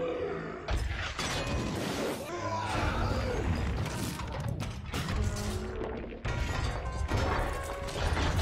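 Giant robot sound effects: dense mechanical grinding and metal clanking, with music underneath.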